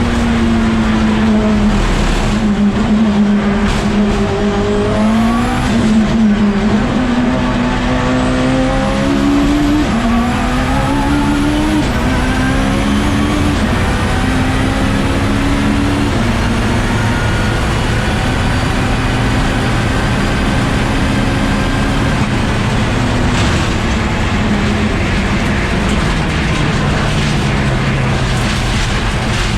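Race car engine running at high, held revs, its pitch stepping up a little every couple of seconds before levelling off, over steady mechanical noise.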